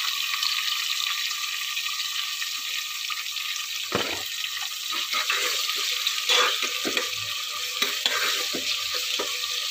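Sliced onions sizzling in hot oil in a metal pot, with a steady frying hiss. From about four seconds in, a steel spoon scrapes and clinks against the pot as the onions are stirred.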